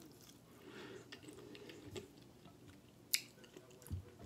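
A person chewing a mouthful of chicken Alfredo pasta with broccoli, close to the microphone, with soft wet mouth sounds. A single sharp click comes about three seconds in, and a low thud follows shortly after.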